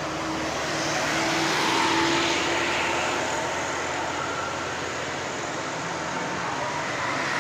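Road vehicle passing: a steady hiss swells over the first two seconds and then eases, with a steady hum that stops about three seconds in.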